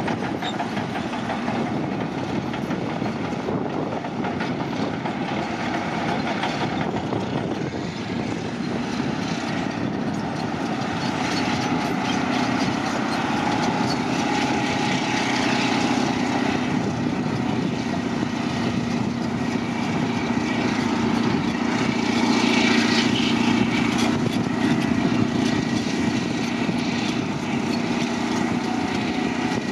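Caterpillar D9N crawler dozer running continuously, its diesel engine working with the clatter of the machine throughout, a steady engine note settling in after about ten seconds and getting a little louder later on.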